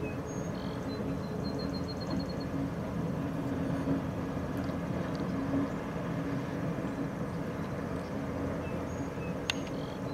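Distant diesel locomotives hauling a passenger train, a steady low drone across the water. A small bird gives a quick run of high chirps about a second and a half in.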